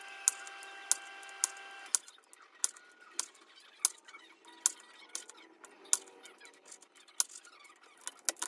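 Chef's knife halving grape tomatoes on a wooden cutting board: a sharp knock of the blade on the board about every half second. A faint steady hum stops about two seconds in.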